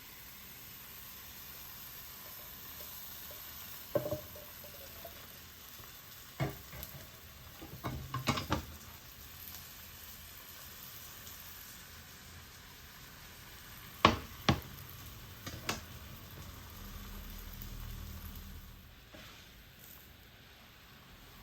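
Crepe batter frying in a buttered pan with a steady sizzle, broken by a few sharp clicks and knocks of a utensil against the pan, the loudest about two-thirds of the way through.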